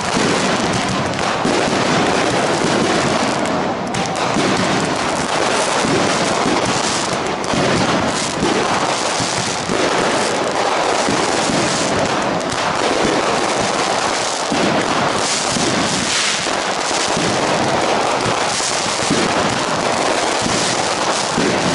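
Fireworks display: a dense, unbroken barrage of many aerial shells bursting and crackling at once, overlapping bangs with no pause between them.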